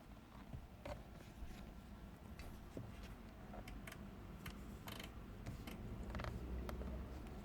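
Low rumble of a 2010 Toyota Yaris heard from inside the cabin, with scattered light clicks and rattles. The rumble swells a little near the end.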